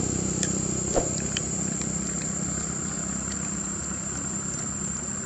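A motor vehicle's engine running with a steady low hum and slowly fading, with a thin steady high-pitched tone and a few faint clicks, the sharpest about a second in.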